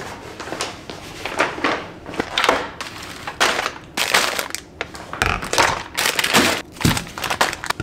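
Plastic grocery packaging and paper bags crinkling and rustling in quick irregular handfuls as groceries are unpacked onto a kitchen counter, with a couple of dull thumps as items are set down.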